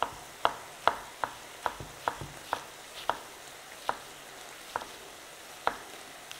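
Chef's knife chopping iceberg lettuce on a wooden cutting board: a run of sharp knocks, about two or three a second at first, then slower and more spaced out.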